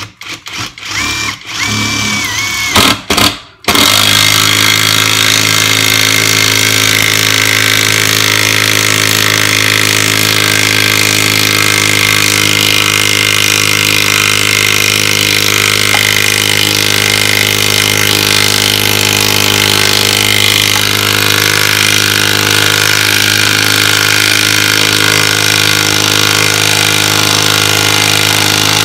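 Greenworks 24V brushless impact driver hammering under heavy load as it drives a large lag bolt with a 3/4-inch head into a 4x4 of lumber without a pilot hole. A few short bursts in the first few seconds, then one unbroken, steady hammering buzz for the rest.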